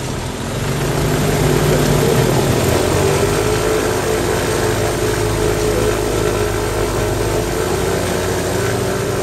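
SeaRey amphibious seaplane's engine and pusher propeller running steadily at idle just after start-up, loud and even, rising slightly in the first second or two.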